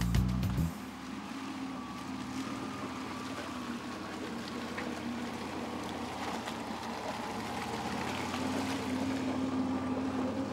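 VW Typ 166 Schwimmwagen's air-cooled flat-four engine running steadily as the car drives through mud, getting a little louder near the end. Background music cuts off just under a second in.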